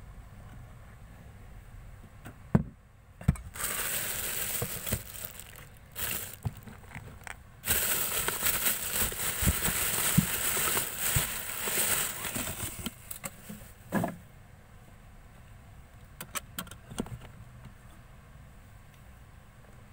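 Slime being squished and stretched by hand, crackling and popping: a short stretch about four seconds in and a longer, louder one of about five seconds, with scattered clicks.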